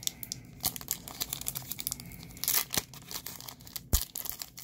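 Foil wrapper of a Pokémon trading-card booster pack being torn open and crinkled in the hands, a dense, irregular crackle. A single sharper thump stands out about four seconds in.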